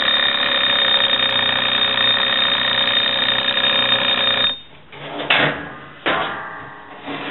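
Wind-up mechanical kitchen timer ringing its bell steadily for about four and a half seconds, then cutting off: the baking time is up. Two sharp knocks follow about a second apart.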